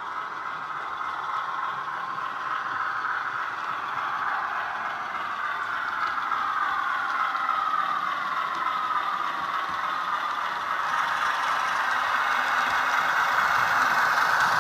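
Diesel locomotive engine sound from a Soundtraxx Econami DCC sound decoder, played through the small speaker of a model Class 47, with the model's wheels rattling on the track. It runs steadily, its pitch drifting slowly down and back up, and grows louder as the train approaches.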